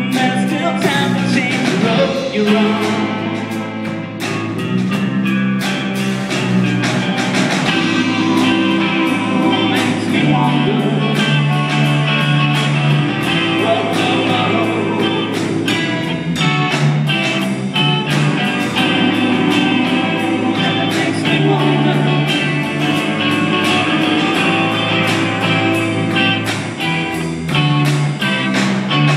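Live rock band playing: electric guitars over a drum kit, with a steady beat.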